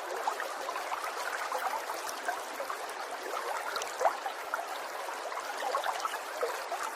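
Water trickling steadily, a continuous patter of many small bubbling splashes with no single loud event.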